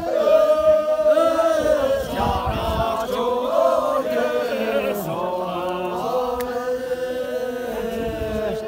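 A group of voices singing together in a chant-like unison, holding long notes that slide gently in pitch, phrase after phrase.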